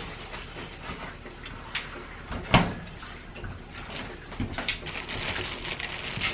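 Kitchen handling noise as thin-sliced deli ham is pulled from a plastic deli bag and laid on rolls in a metal baking pan: scattered light clicks, one sharp knock about two and a half seconds in, and plastic bag rustling and crinkling in the last two seconds.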